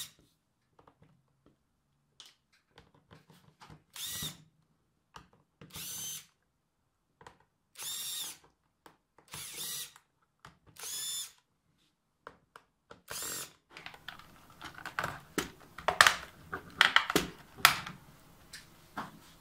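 Cordless drill-driver backing screws out of a plastic keyboard case, running in about six short bursts of half a second each, a couple of seconds apart. In the last few seconds come irregular clattering clicks and knocks of the plastic keyboard being handled and turned over.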